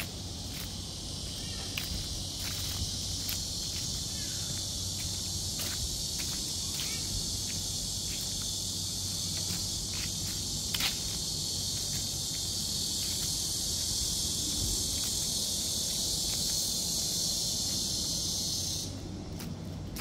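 Insects singing in a steady, dense high-pitched hiss that stops abruptly near the end, with light footsteps on leaf-strewn paving.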